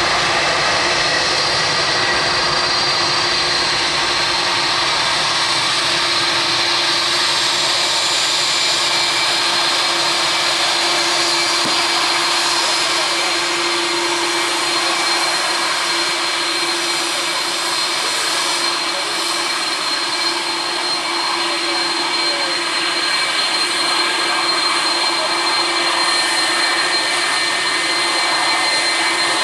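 Air India Boeing 747-400's four jet engines at takeoff power during the takeoff roll and liftoff: a loud, steady rushing noise with a high whine running through it.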